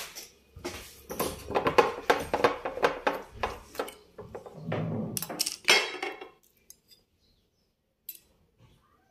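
A metal spoon clinking against glass bottles and plastic supplement jars that are being picked up, moved and set down on a tabletop. It is a rapid, uneven run of clinks and knocks that stops about six seconds in, leaving only a few faint ticks.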